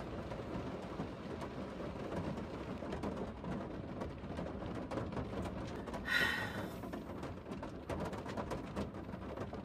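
Rain falling steadily, a constant patter of drops. About six seconds in, a brief higher-pitched sound rises above it.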